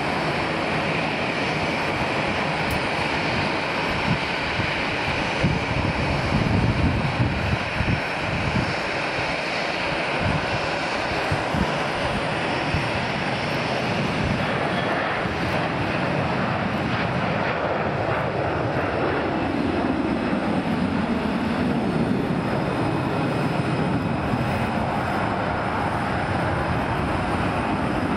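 Boeing 737-300's two CFM56-3 turbofan engines at takeoff thrust, a steady jet roar through the takeoff roll, lift-off and climb-out. A low rumble in the roar falls in pitch as the jet goes past, about two-thirds of the way through.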